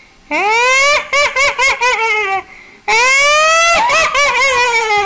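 A person's shrill, high-pitched cackling laugh in two long runs, each opening with a falling note and then breaking into quick pulses, done as a ghost voice being recorded into a voice changer app.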